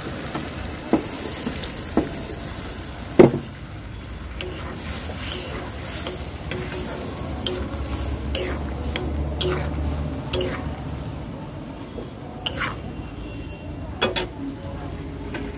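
A flat metal spatula stirring a wet mustard-and-cashew masala in a kadai while the sauce sizzles steadily. The spatula scrapes and clinks against the pan now and then, the loudest clink about three seconds in.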